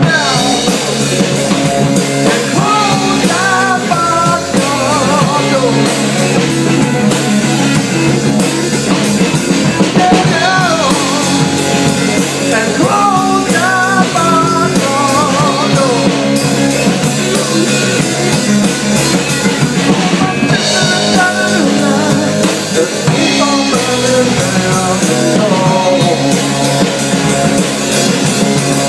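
A blues-rock band playing: drum kit and a guitar strummed close by, with a wavering lead line coming in several times.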